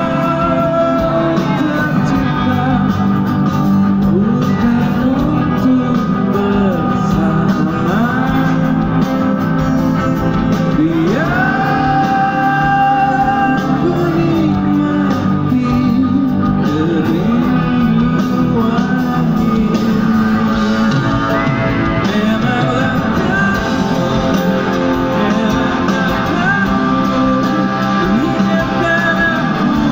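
Live pop-rock band playing through the concert PA: a male lead voice singing over acoustic and electric guitars with the full band, heard from the audience.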